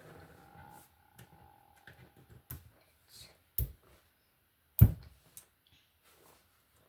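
Plastic Lego bricks being handled and snapped together: a few sharp clicks with lighter taps in between, the loudest click about five seconds in.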